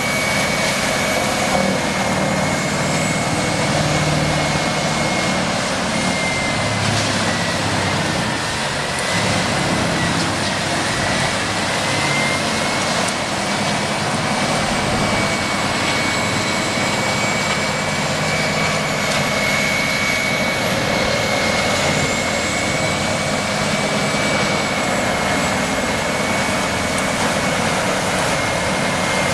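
A large engine-driven machine running steadily under load, with a constant high whine that dips slightly in pitch around the middle and then recovers.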